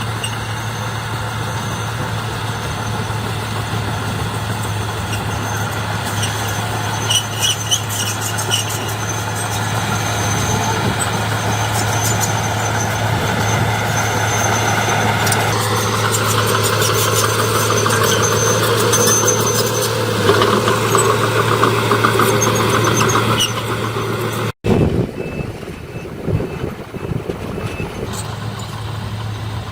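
Heavy construction machinery diesel engines running steadily, with scattered clicks and a busier stretch that grows louder before an abrupt break about 25 seconds in.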